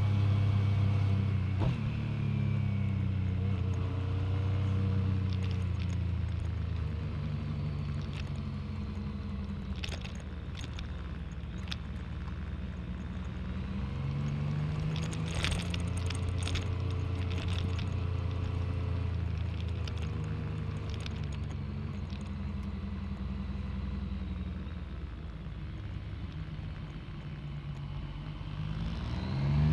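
Yamaha MT-09 three-cylinder engine running at low revs, its pitch dipping and shifting as the bike rolls along slowly. A scatter of short clicks comes midway, and the revs rise sharply near the end as the bike accelerates.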